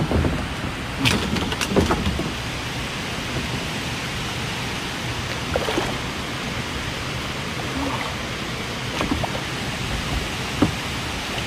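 Steady rushing noise, the sound of moving water or wind, with a few light clicks and knocks as fishing line and tackle are handled in a kayak.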